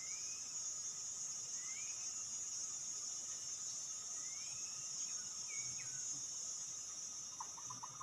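Steady high-pitched drone of insects such as crickets or cicadas, with a few short rising whistled notes from a bird spread through it and a quick run of small clicks near the end.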